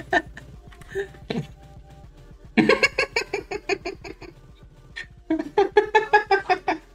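A person laughing in two bouts of quick, rhythmic ha-ha pulses, the first about two and a half seconds in and the second starting about five seconds in.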